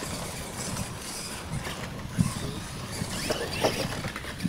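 R/C monster trucks racing over a dirt track, their drive and tyres making a steady noisy whir, with a couple of sharp knocks about two and three and a half seconds in.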